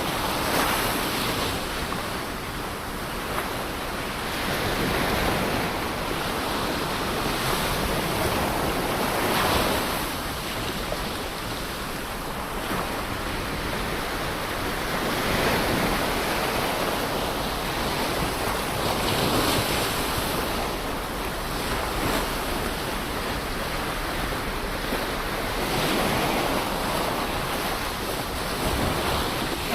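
Ocean waves breaking on a shore: a continuous rush of surf that swells and recedes every four to six seconds, with some wind on the microphone.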